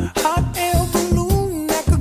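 Upbeat background music with a steady beat and a gliding melody line.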